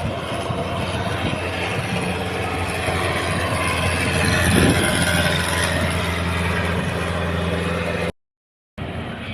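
Barge's diesel engine running with a steady low drone that grows louder to a peak about four or five seconds in. The sound cuts out abruptly about eight seconds in.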